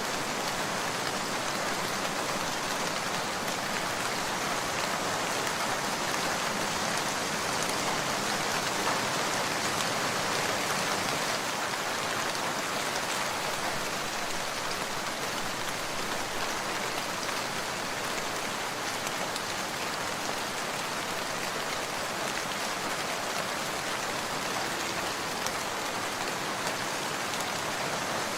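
Heavy rain falling steadily, an even hiss with no pauses or single drops standing out.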